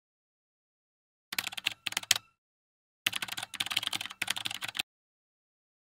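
Typing on a computer keyboard. A short run of quick keystrokes comes about a second in, and a longer run follows from about three seconds in to nearly five, with silence between and after.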